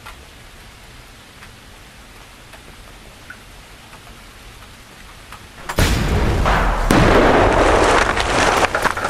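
Faint steady hiss, then about six seconds in a sudden loud burst of rushing, rumbling noise that carries on without a break.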